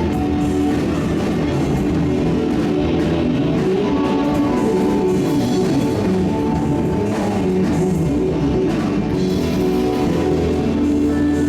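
A gospel band playing an instrumental concert opening, with guitar and drum kit.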